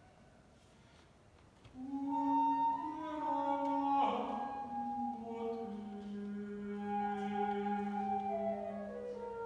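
Chamber music starts after a moment of near silence, about a second and a half in: a flute melody over a held low note from the ensemble, with a brief downward swoop about four seconds in.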